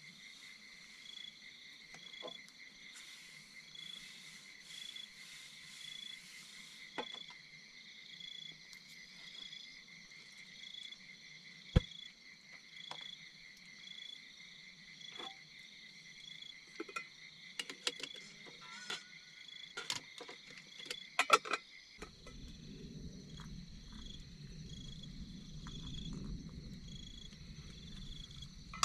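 A steady chorus of calling insects: a high, continuous trilling with a pulsing note that repeats about once every two-thirds of a second. Scattered sharp clicks and knocks come through, most of them about two-thirds of the way in, and near the end a low rumble joins the chorus.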